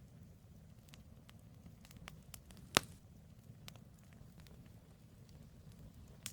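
Campfire logs burning with a low steady rumble and scattered sharp crackles. One loud pop comes about three seconds in, and another near the end.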